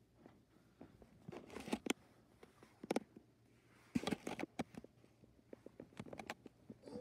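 Handling noise from a phone being moved about: short bursts of rustling and clicking, in four or so clusters over faint room tone.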